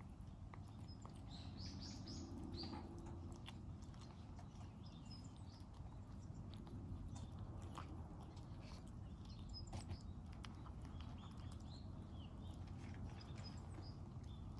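A cat chewing food, with scattered sharp clicks of its bites over a steady low background noise. Small birds chirp briefly near the start and again near the end.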